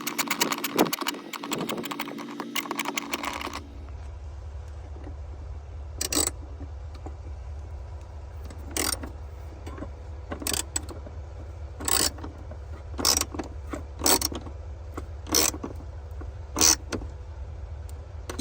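Ratchet wrench clicking rapidly for about three and a half seconds, then single sharp clicks about once a second, over a steady low hum: tightening the battery hold-down bolt back in.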